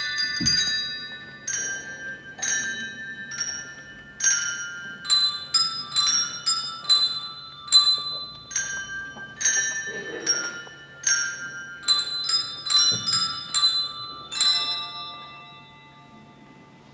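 Tuned bells playing a slow melody, one sharply struck ringing note after another, ending on a chord that rings out and fades away a couple of seconds before the end.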